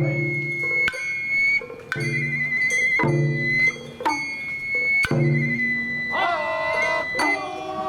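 Sawara-bayashi festival music: a shinobue bamboo flute holds a high, wavering note while drums strike about once a second. Near the end a lower, sliding tone joins in.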